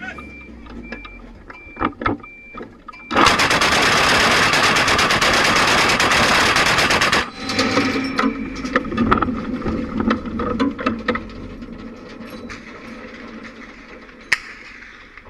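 ZSU-23-4 Shilka's four 23 mm autocannons firing one long continuous burst, lasting about four seconds, starting about three seconds in and cutting off suddenly. Scattered sharp single reports follow.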